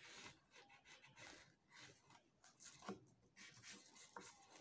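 Faint scratching and rubbing on paper as a cap brim's outline is drawn and the sheet handled, with two small sharp taps about three and four seconds in.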